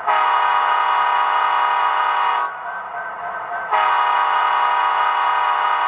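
HO-scale model diesel locomotive's DCC sound decoder sounding its air horn through the model's small onboard speaker: two long, steady blasts with a short gap between them.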